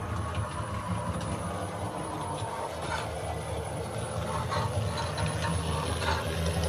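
London Underground battery locomotive running sound, played through the small speaker of an OO-gauge model's LokSound V5 DCC sound decoder from recordings of the real locomotive L44, as the model moves along the track. A steady low hum, with a run of light clicks in the second half.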